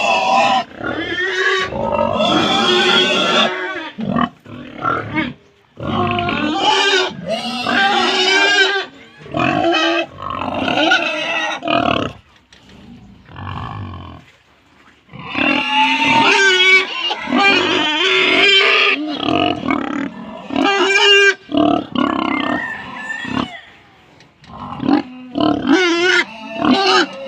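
Pigs squealing and grunting loudly in repeated bursts of a second or two, with short pauses between them.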